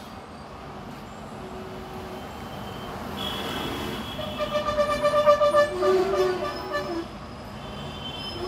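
Electronic sound design from a product promo video: a rising whoosh, then several held synth tones sounding together that pulse for a while and then thin out.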